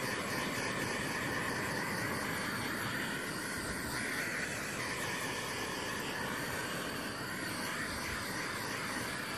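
Handheld blow torch flame hissing steadily as it is swept over wet acrylic paint.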